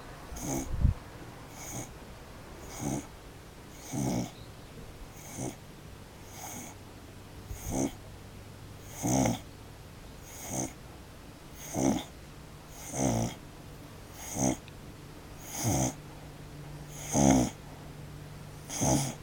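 A pet snoring loudly, one snore with each breath, about every second and a quarter, the snores getting louder toward the end.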